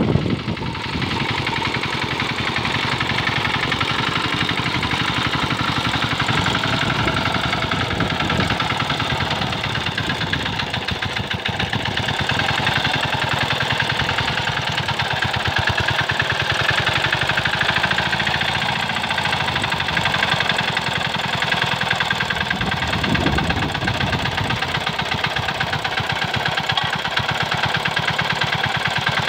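Engine of a Quick Capung Metal two-wheel hand tractor running steadily under load while it harrows a flooded rice paddy, with a fast, even knock from its firing.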